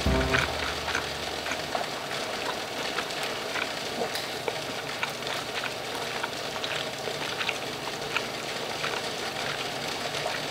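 Pot of water at a rolling boil, a steady hiss with irregular small crackles and pops.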